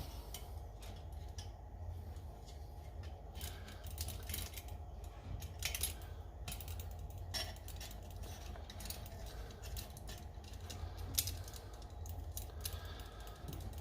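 Small metal parts of a Coleman 530 pocket stove being handled and fitted during reassembly: scattered light clicks and clinks at irregular intervals, over a steady low hum.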